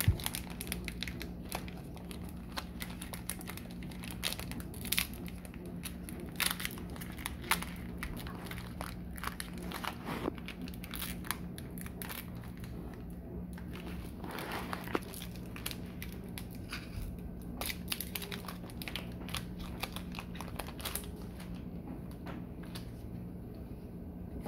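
Foil wrapper of a Pokémon trading card booster pack crinkling and crackling in the hands as it is worked and torn open, in many small irregular crackles.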